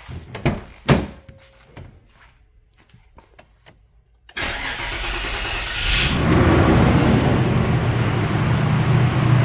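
A few sharp knocks and clicks, then about four seconds in the car's engine cranks over and catches with a brief rev about six seconds in, settling into a steady idle.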